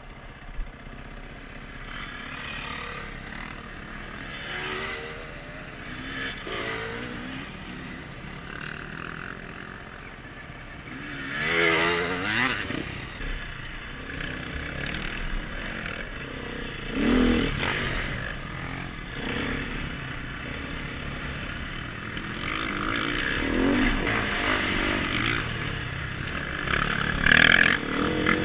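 Dirt bike engine running along a trail, revving up and down as the rider works the throttle, with the strongest surges about twelve and seventeen seconds in and again near the end.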